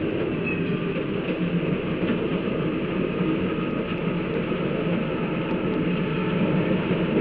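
Electric interurban railway car running at speed along the track: a steady, even rolling noise of wheels on rail.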